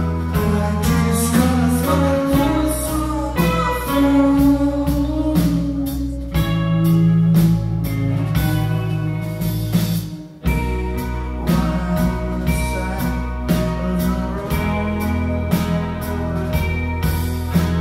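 Live indie rock band playing: electric guitars over bass and drums, with a voice singing. The sound briefly drops out about ten seconds in, then comes back.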